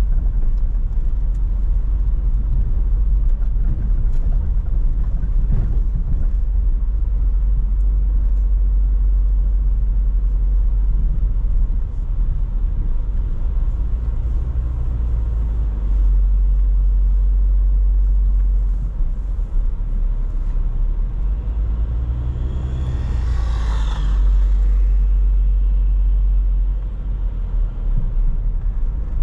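Car driving along a highway: a loud, steady low rumble of road and engine noise. About three-quarters of the way through, a brief higher-pitched sound rises and fades over about two seconds.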